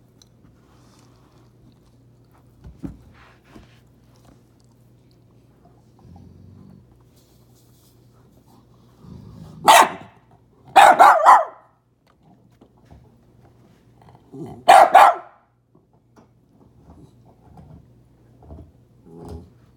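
A dog barking sharply: a single bark about ten seconds in, a quick pair a second later, and another burst around fifteen seconds in, with quieter low grumbles between and after.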